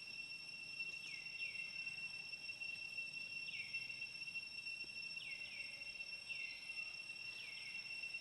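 Steady high-pitched insect trilling, like crickets, with short falling chirps repeating every second or two, often in quick pairs.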